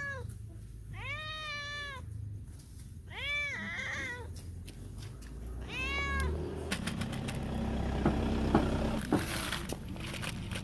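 Hungry domestic cat meowing repeatedly to beg for food, about four arching meows in the first six seconds. In the second half come a run of sharp clicks and knocks, loudest around eight to nine seconds in.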